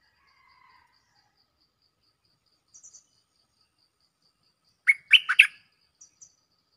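Stripe-throated bulbul singing: faint calls and high chirps, then a short loud phrase of about four quick notes about five seconds in. A faint insect ticks steadily, about four times a second.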